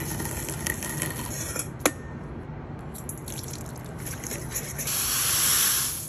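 Light crackling of Cheez-It crackers crushed under a wooden rolling pin. About five seconds in comes a loud, steady hiss lasting about a second as the crushed cracker crumbs are poured into a glass mixing bowl.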